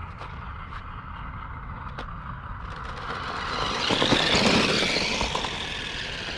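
Battery-powered toy RC monster truck driving down a concrete skatepark ramp: its electric motor and tyres on the concrete make a rushing noise that swells to its loudest about four seconds in as it passes close, then fades as it runs off across the bowl.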